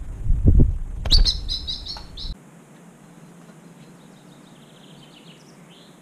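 A bird chirping: a quick run of about six high chirps about a second in, then fainter twittering. Loud low rumbling noise, like wind buffeting the microphone, sits under the first two seconds and cuts off suddenly.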